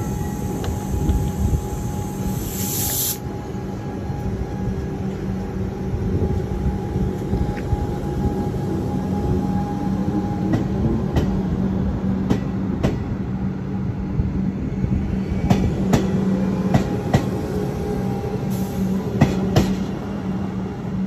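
Comeng electric suburban train pulling out of a platform with a steady electrical hum. A high hiss sounds for the first three seconds, and from about halfway through, wheel clicks over rail joints come as the train moves off.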